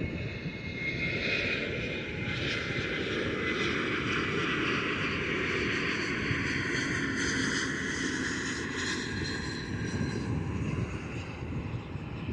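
Jet airliner's engines at takeoff power: a steady rush with a high whine that slowly falls in pitch over several seconds.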